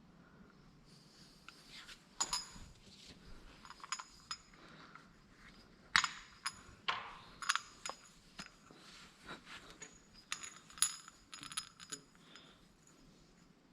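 Metal parts clinking and tapping together in irregular, scattered knocks with a short bright ring: hydraulic hose fittings and metal tools being handled during hose assembly.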